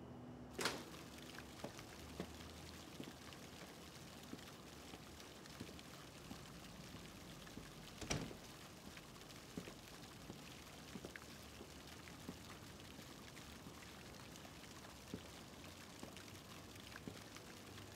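Faint, steady patter of falling water with many scattered drips, and two sharper knocks, one just under a second in and one about eight seconds in.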